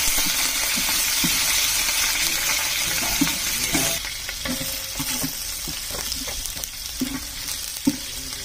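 Green chillies and onions sizzling in hot oil in a large metal pot while a steel ladle stirs them, scraping and knocking against the pot. The sizzle is loudest for about the first four seconds, then drops to a lower hiss.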